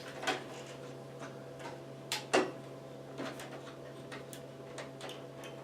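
Scattered light clicks and taps of computer parts and cables being handled, the sharpest about two and a half seconds in, over a steady low hum.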